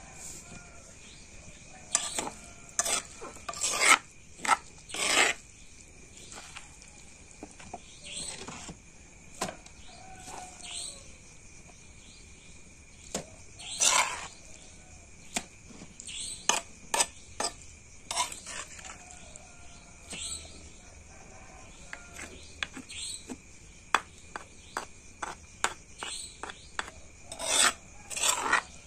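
Stone pestle grinding and crushing corn kernels in a stone mortar (cobek): irregular rasping, scraping strokes in clusters, with pauses around the middle.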